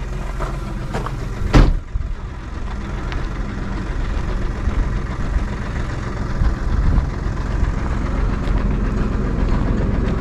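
Tractor engine idling steadily, with one sharp bang about a second and a half in.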